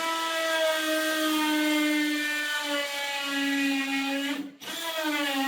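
Handheld electric power tool motor running with a steady whine, its pitch sagging slightly as it works. It stops briefly about four and a half seconds in, then runs again and winds down near the end.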